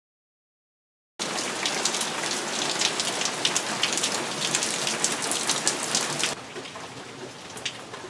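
Rain falling steadily, with many sharp drops pattering, cutting in abruptly about a second in and dropping to a lighter level about six seconds in.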